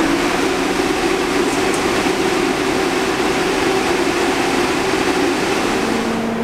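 Steady hum and fan noise of a subway train standing at the platform, its air conditioning and auxiliary equipment running while stationary. The hum's pitch shifts slightly near the end.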